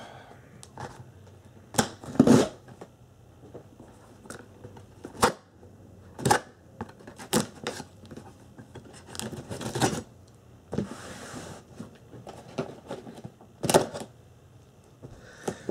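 A knife slicing through packing tape on a cardboard shipping box, with scattered sharp scrapes and taps of the blade and cardboard. There is a longer rasp of tape being torn off the cardboard about ten seconds in.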